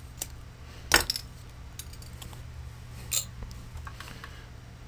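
Flush cutters snipping a PLA filament spike with a sharp snap about a second in, then a metallic clink just after three seconds as the cutters are laid on a metal work plate.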